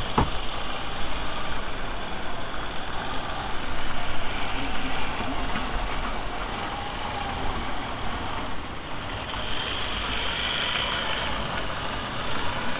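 HO-scale model steam locomotive running along the track close by: a steady whir from its electric motor and wheels rolling on the rails, with a sharp click right at the start.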